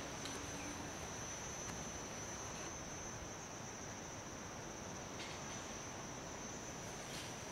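Insects trilling steadily in tropical forest: one unbroken high tone over a faint hiss.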